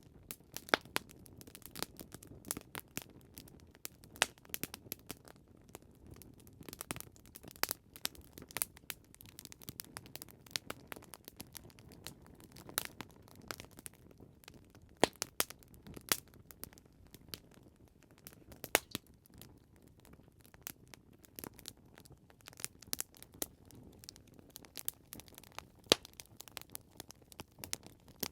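Wood fire crackling: irregular sharp pops and snaps over a steady low hiss of burning logs.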